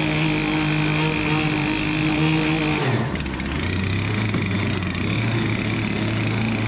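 Stihl 088 chainsaw's two-stroke engine running hard, driving a surface-drive propeller that churns and sprays the water in a water-filled boat hull. About three seconds in, the engine note drops to a lower pitch and holds there.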